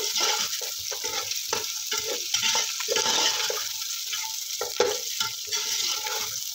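Mutton pieces with onions and garlic sizzling in hot oil in a metal pot as they are browned, stirred with a metal ladle that scrapes and knocks against the pot again and again.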